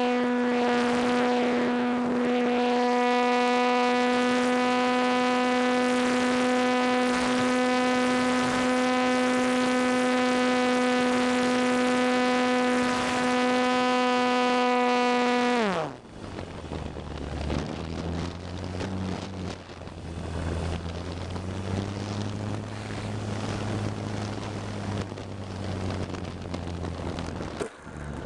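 Electric motor and propeller of a ParkZone T-28 RC plane heard from on board: a steady high-pitched whine at high throttle, which about sixteen seconds in falls sharply in pitch as the throttle is cut. A quieter, uneven low hum with rushing air follows.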